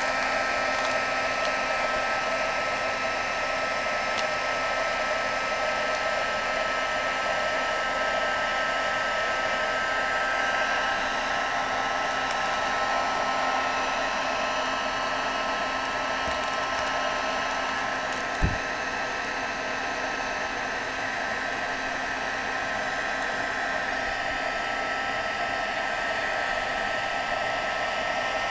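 Handheld craft heat gun running steadily, its fan blowing hot air with a steady whine. A single short knock about two-thirds of the way through.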